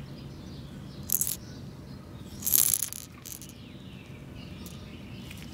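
A hard-bodied crankbait lure rattling in short shakes as it is turned in the hand: a brief rattle about a second in, the loudest about halfway through, and a short one just after.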